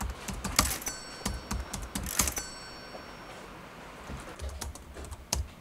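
A scatter of quick clicks and taps like typing, several of them followed by short high dings, over faint background music.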